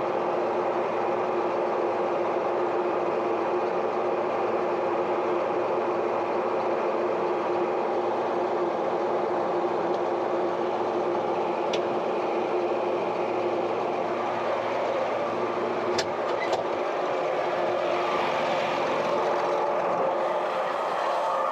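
Grain bag extractor and the engine driving it running steadily as the soybean bag is unloaded and rolled up. A couple of sharp clicks sound about twelve and sixteen seconds in.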